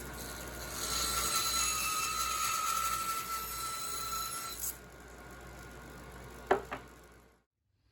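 Bandsaw trimming protruding poplar plugs flush on wooden piano keys: the running saw gets louder with a steady high whine while cutting for about four seconds, then drops back to running free, with a sharp knock near the end.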